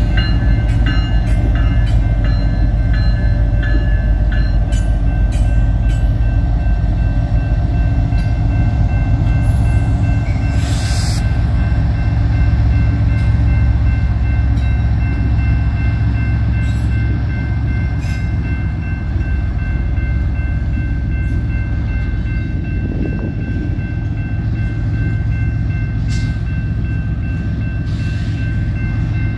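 A diesel freight train passing close by, led by a Norfolk Southern SD70ACe and a BNSF ES44C4: a heavy, steady engine and wheel rumble that eases a little in the second half, with wheel clicks in the first few seconds and a brief hiss about ten seconds in. A grade-crossing bell rings steadily throughout.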